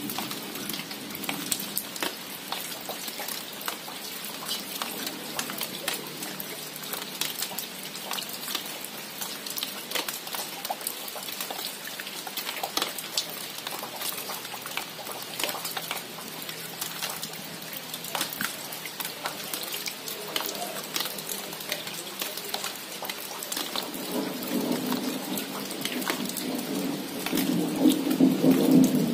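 Rain falling on plant leaves, with many single drops striking sharply throughout. About five seconds before the end a low rumble of thunder builds and grows louder.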